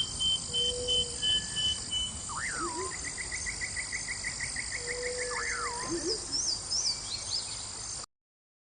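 Nature soundscape of insects droning steadily, with birds calling over it: repeated swooping whistles, a fast trill in the middle and quick high chirps near the end. It cuts off suddenly to silence about eight seconds in.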